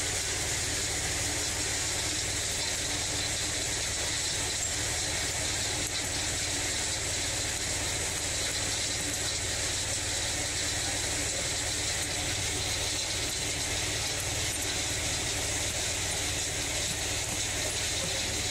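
Hammer mill running steadily, a constant machine drone with faint steady tones.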